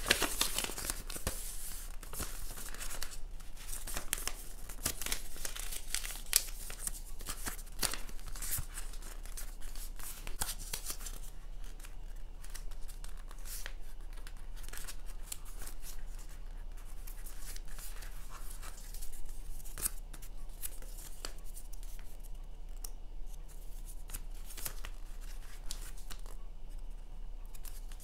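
A sheet of thin colored origami paper being folded and creased by hand: rustling and crinkling, with sharp scraping strokes as fingers run along the folds. The strokes come thick and fast for the first ten seconds or so, then grow sparser, over a faint steady low hum.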